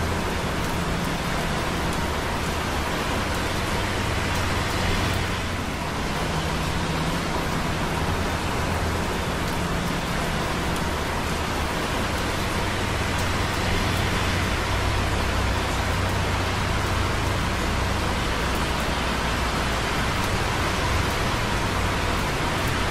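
Steady hiss of light rain with rain dripping on concrete close by, over the low rumble of busy traffic on wet roads below that swells and fades as vehicles pass.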